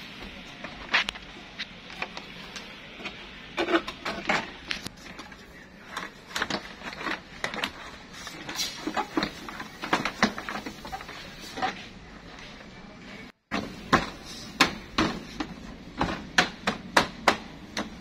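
Plastic interior door trim panel of an Isuzu Forward truck being pressed and knocked into place on the door, its clips snapping in: a run of irregular sharp knocks and clicks, coming quicker in the last few seconds.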